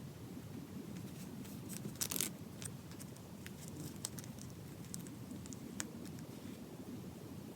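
Small scattered clicks and taps from handling the small leather notebook and its parts, with a short cluster of clicks about two seconds in, over a steady low background hum.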